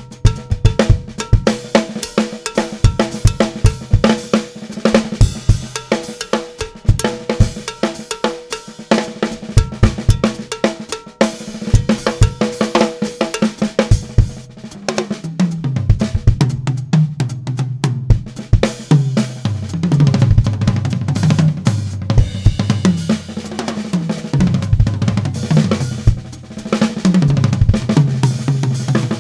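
Drum kit solo with fast, dense strokes and a ringing, cowbell-like pitched tone through the first half. From about halfway the tuned toms take over, their pitches stepping up and down to carry a melody.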